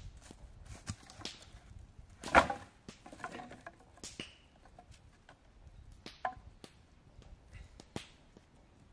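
Dry wooden sticks dropped and set onto a pile on forest leaf litter: one loud clattering crash about two seconds in, then lighter knocks of sticks being placed. A sharp single knock near the end as a hatchet strikes a stick.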